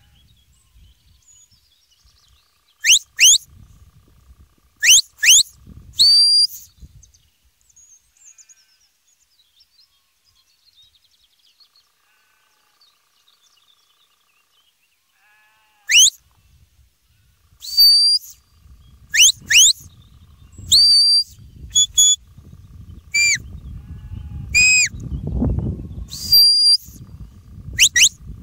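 A shepherd whistling commands to a working sheepdog: short, sharp whistle blasts, most rising steeply and some held on one note, in pairs and small groups. A silent gap comes in the middle, and wind rumbles on the microphone through the second half.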